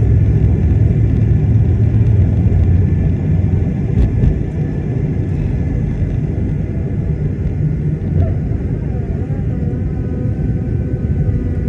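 Cabin noise of an Airbus A220-300 on takeoff: a steady, loud low rumble of its Pratt & Whitney PW1500G geared turbofans and the airframe. There is a single knock about four seconds in, after which the rumble eases slightly and faint steady engine tones come through.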